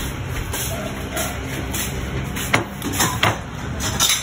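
A few sharp clicks and knocks of dishes and food being handled at a meal, over a steady background noise.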